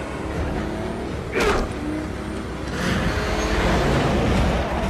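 Semi truck and car at speed in a film chase soundtrack: engines running under heavy road noise, with a brief sound that falls sharply in pitch about a second and a half in.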